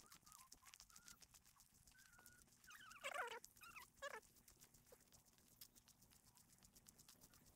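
Mostly near silence, broken by two short wavering animal calls: a longer one about three seconds in and a brief one a second later.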